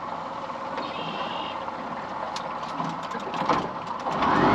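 Boat motor running steadily under the wind and water noise, then rising in pitch and growing louder near the end as it speeds up.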